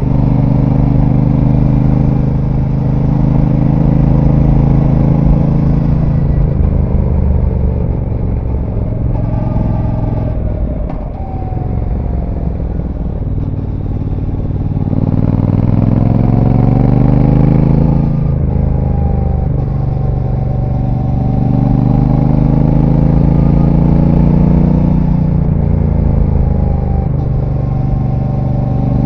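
Brixton Cromwell 1200's parallel-twin engine through its stock exhaust, heard from on board while riding: it holds a steady pace, eases off about ten seconds in, then pulls hard with the pitch climbing and dropping back at gear changes.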